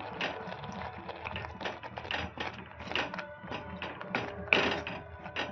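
Perforated metal spatula scraping and clacking on a tava as grated bottle-gourd halwa is stirred, in irregular strokes several a second, the sharpest about four and a half seconds in. Background music plays underneath.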